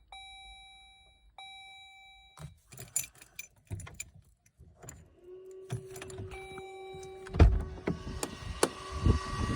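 2012 Jeep Grand Cherokee trying to start on the key after its push-button start failed. A dash chime dings twice, then come clicks at the ignition, and a steady buzz starts about five seconds in. Heavy thumps follow near the end as the engine seems to crank and catch into a steady running noise, though it is unclear whether it has started.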